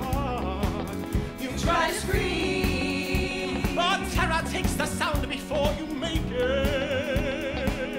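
Live band music with a steady drum beat under voices singing long held notes with vibrato.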